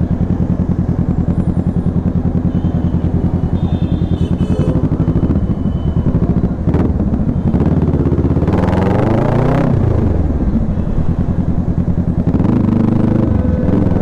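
Kawasaki Ninja motorcycle engine running as the bike is ridden, a steady drone with a fast pulse. It revs up and back down once past the middle, then picks up again near the end. The freshly tightened chain makes no noise that stands out.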